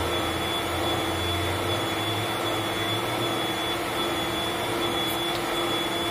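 Electric mixer motor running steadily with an even hum, beating egg whites with cream of tartar.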